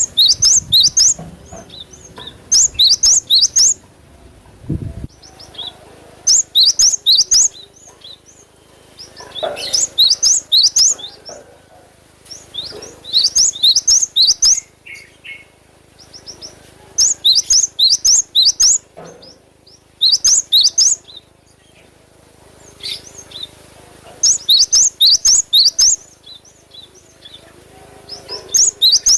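Cinereous tit (gelatik batu) singing in a lively, sustained way: bursts of rapid, sharp, high notes about a second long, repeated every three to four seconds.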